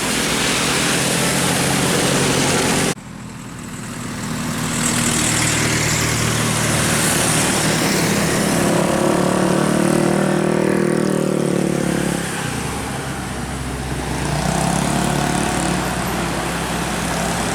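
Road traffic: vehicle engines running past. The sound cuts off abruptly about three seconds in, then an engine rises in pitch as it accelerates, and another engine follows.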